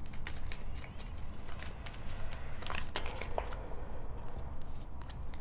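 Oracle cards being shuffled and handled, a scatter of soft card flicks and slides over a low steady hum.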